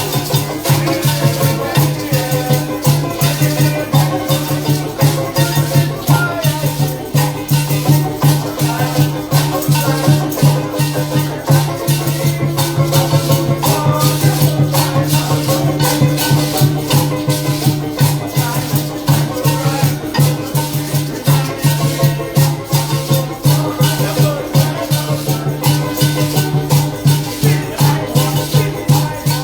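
Parang band music: maracas shaking a fast, steady rhythm over other instruments, with a pulsing low bass note.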